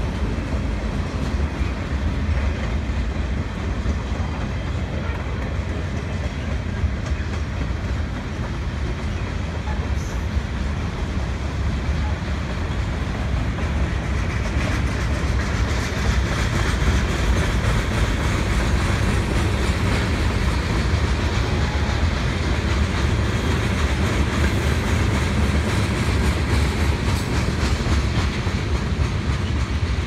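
Cars of a mixed freight train rolling past: a steady rumble of steel wheels on the rails, growing a little louder about halfway through.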